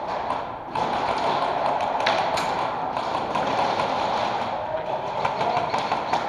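Footsteps tapping on a concrete floor with gear rattling as an airsoft player moves, over a steady noisy background, with a couple of sharp clicks about two seconds in.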